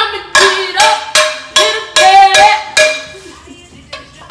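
Metal frying pans banged together again and again: about seven ringing clangs, a couple a second, stopping about three seconds in.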